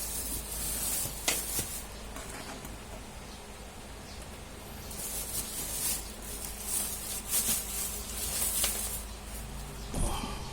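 Steady low electrical hum from a 12 V power inverter being tried on a battery, with bursts of rustling hiss and a couple of sharp clicks about a second in from handling and connecting it.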